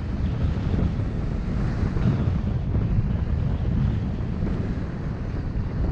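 Steady wind buffeting the head-mounted camera's microphone at riding speed, over the hiss of a snowboard sliding on groomed snow.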